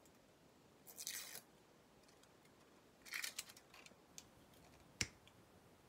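Quiet kitchen handling sounds from sauce bottles: two short squishy, rustling bursts, about a second in and about three seconds in, a few light ticks, and one sharp click near the end.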